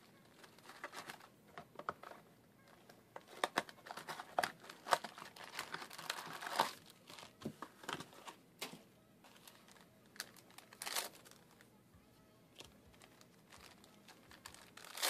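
Foil booster packs of trading cards crinkling and rustling as they are handled and laid out, a jumble of irregular crackles that is busiest in the middle, ending in a short sharp rip.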